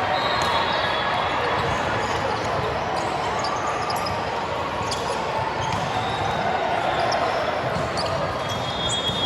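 Busy gymnasium during an indoor volleyball match: a steady hubbub of crowd and player voices, with scattered sharp smacks of balls being hit and bouncing, and brief high squeaks about half a second in and near the end.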